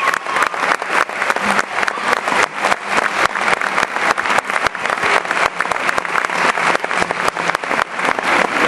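Audience applauding steadily, with many sharp individual claps close to the microphone.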